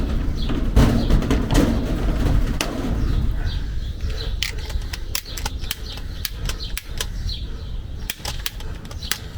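Hand pop-rivet tool setting a blind rivet: a run of sharp clicks as the handles are worked, growing more frequent in the second half. Wind rumble on the microphone is heavy at first and fades.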